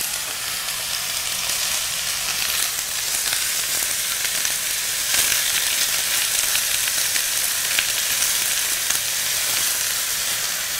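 Apple pieces frying in ghee in a stainless steel pan, a steady sizzle, while sugar is poured in and turned with a spatula.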